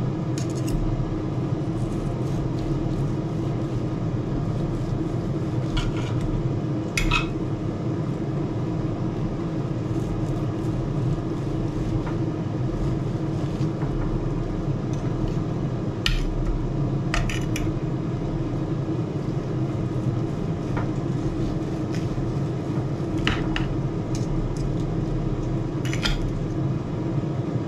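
Carving knife and fork scraping and clicking against a ceramic platter while roast chicken is carved: a handful of sharp clinks spread through. Under them runs the steady hum of an air fryer's fan.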